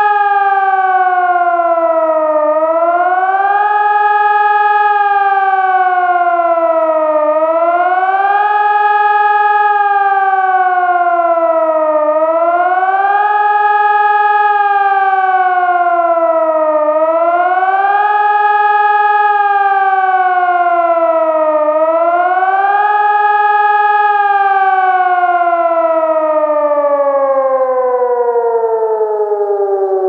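Electronic civil-defence siren sounding the German "Warnung der Bevölkerung" signal, the rising and falling howl that means acute danger to the population. Each rise and fall takes about five seconds, with a short hold at the top. Near the end it glides down in one long fall as the signal ends.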